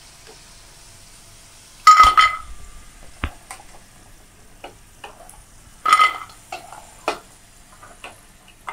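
A perforated steel skimmer clinking against dishes as fried potato fingers are moved from the pan onto a ceramic plate. There are two sharp, ringing clinks, about two seconds in and about six seconds in, with a dull knock and a few lighter taps in between.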